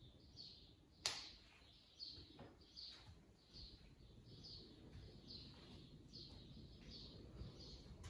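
Near silence: faint room tone with faint short high chirps repeating about twice a second, a sharp click about a second in, and a few soft low thuds.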